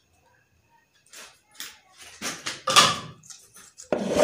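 Scissors snipping a thin PVC sheet in a few short crisp cuts, then a louder knock and rustle near the end as the small pine chest and its curved lid are handled.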